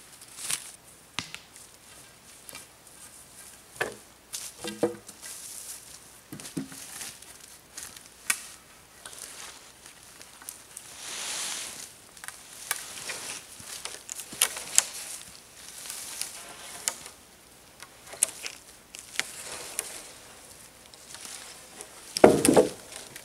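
Wooden poles knocking together as a pole tripod is handled and set upright, with footsteps crunching on dry wood shavings and debris. A longer rustle comes about eleven seconds in, and the loudest knock near the end.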